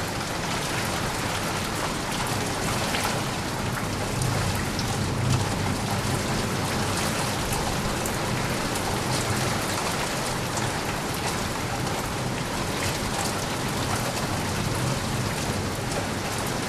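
Steady heavy rain falling, a dense hiss of drops, with a low rumble of distant thunder swelling a few seconds in.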